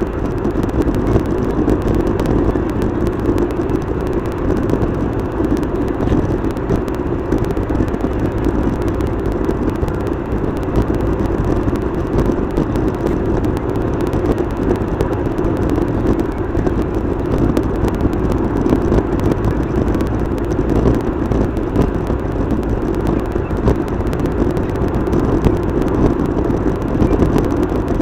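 Steady road and engine noise of a car travelling at highway speed, heard from inside the cabin as a continuous rumble.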